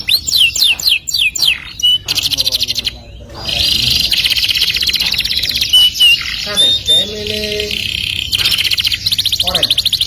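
Canary singing: quick runs of sweeping chirps, a brief pause about three seconds in, then a long, fast rolling trill with a few short whistled notes, and more sweeping chirps near the end.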